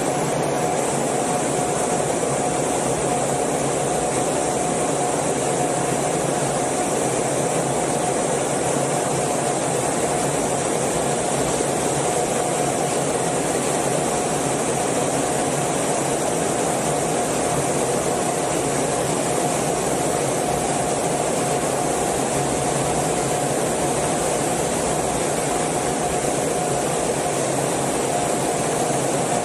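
Steady in-cockpit noise of an F/A-18 jet in formation flight: an even rush of airflow and engine noise with a constant mid-pitched tone running through it, unchanging throughout.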